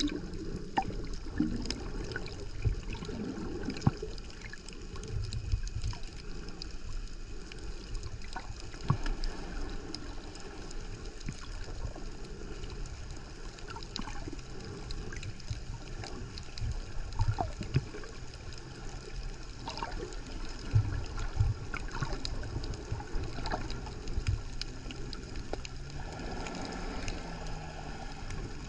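Underwater sound picked up through an action camera's housing: a muffled rumble and wash of moving water, with many scattered sharp clicks and crackles. A steady low hum joins about halfway through and rises briefly near the end.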